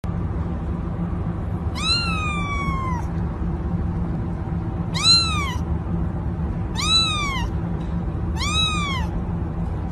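Ginger kitten meowing four times, high calls that each rise and then fall, the first the longest. A steady low background noise runs underneath.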